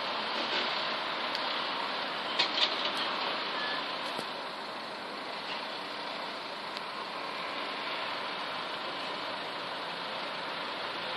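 Steady, even background hiss and rumble, like distant city traffic heard through a tablet's microphone, with two small clicks about two and a half seconds in.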